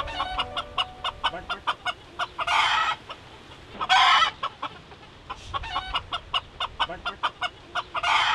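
Domestic chickens clucking in quick runs of short notes, several a second. Three louder, harsher calls about half a second long break in: one a little before the middle, one just after it, and one at the very end.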